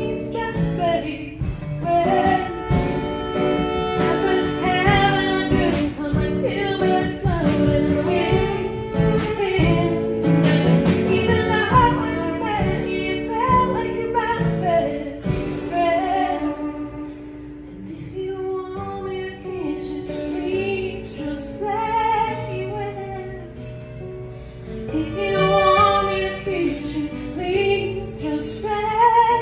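Live band performance: a woman sings over her acoustic guitar, with a fiddle and a drum kit. The band plays more softly for a stretch past the middle, then builds again near the end.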